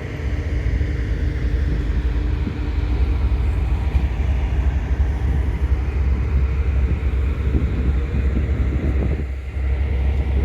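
Boat under way: a steady, loud low rumble with a rushing noise over it, briefly dropping about nine seconds in.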